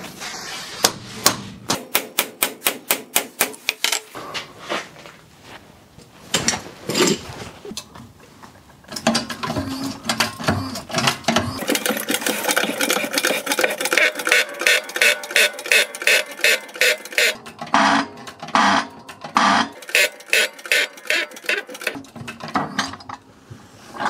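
Runs of rapid, regular metallic clicking, like a ratchet, with clanks and knocks of steel tools and parts as a crankshaft is set up in a hydraulic shop press; a few louder separate knocks come near the end.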